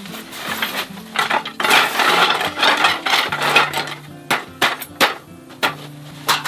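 Wooden slats of a roll-up camp table clattering and knocking as the slatted tabletop is pulled from its bag and unrolled onto the folding frame. There is a dense clatter through the middle, then a few separate sharp knocks near the end as the slats settle.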